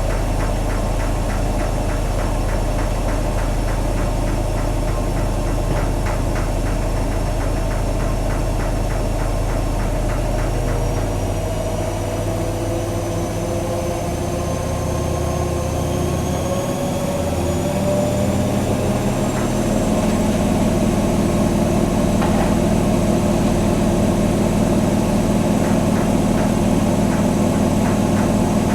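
AEG Öko Lavamat Edition 2000 washing machine's drum speeding up into its spin: a steady hum, then from about ten seconds in a motor whine that climbs steadily in pitch, with the sound getting louder about two-thirds of the way through as the drum gathers speed.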